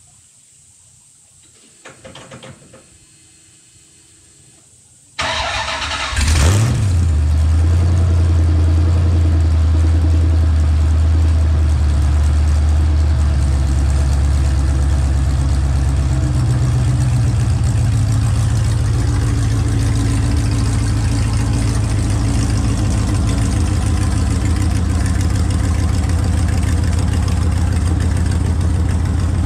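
Sandrail's GM LS1 5.7-litre V8 started: the starter cranks for about a second, the engine catches about six seconds in with a quick rise and fall in revs, then settles into a steady idle. A short noise sounds about two seconds in, before the cranking.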